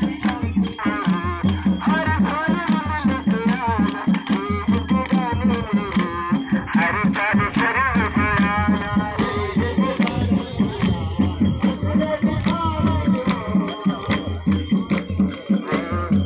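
Folk dance music: a fast, steady drum beat with a rattling, jingling percussion layer and a wavering melody over it.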